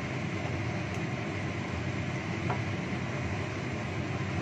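Steady low rushing rumble of a gas stove burner under a wok of chicken wings simmering in sauce, while a wooden spatula stirs them, with one light tap about halfway through.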